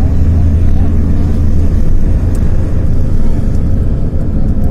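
A car driving along a road, heard from inside the cabin: a loud, steady low rumble of engine and tyre noise.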